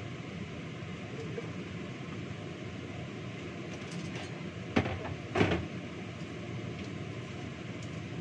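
Steady low rumble of a kitchen range hood fan, broken a little past halfway by two loud knocks about half a second apart, as cookware is handled at the sink.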